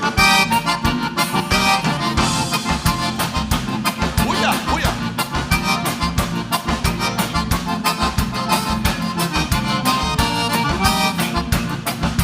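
Gaúcho dance band playing an instrumental passage: accordion carrying the melody over bass and drums with a steady, quick dance beat.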